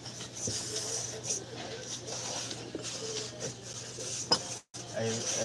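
A cloth rag rubbing and wiping over a drum-brake backing plate, wheel cylinder and hub, with a few light metal clicks.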